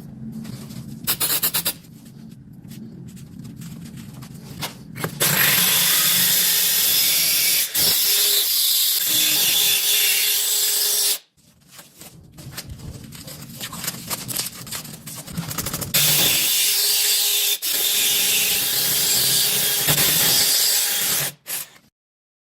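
Power drill boring into ceramic wall tile, in two long runs of about six and five seconds, with quieter scraping and handling noises between them.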